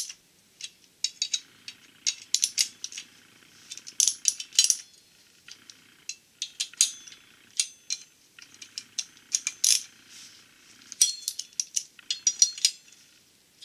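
Hand ratchet wrench clicking in short runs with pauses between them, as the flex plate's locking nuts are snugged onto the crankshaft hub.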